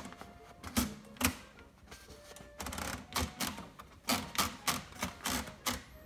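1971 Sears Newport manual typewriter's platen being turned by its knob to roll paper in, the line-space ratchet giving a series of sharp clicks that come faster in the second half.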